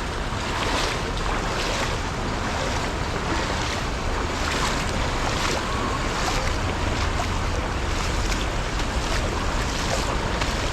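Heavy rain pouring down on floodwater, a steady hiss, with wind buffeting the microphone as a low rumble.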